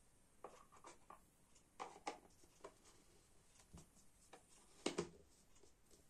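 Quiet handling sounds: scattered light taps and rubbing, with one sharper tap about five seconds in.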